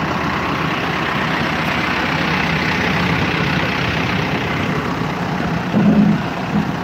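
Caterpillar 428E backhoe loader's diesel engine idling close by, a steady engine drone that swells briefly louder about six seconds in.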